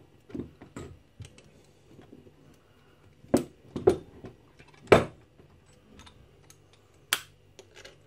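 Irregular clicks, taps and metallic knocks from a heavy old steel padlock and copper wire being handled on a workbench while the wire is wrapped around the lock. A few sharper, louder knocks come around the middle and one near the end.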